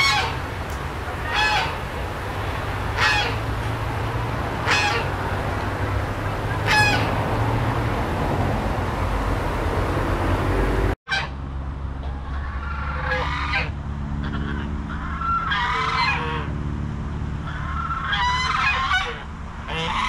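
Chinese geese honking a territorial warning: short, loud honks every second or two, then a few seconds without calls. The sound drops out for an instant about halfway through, and after it the honks come again, some in quick pairs.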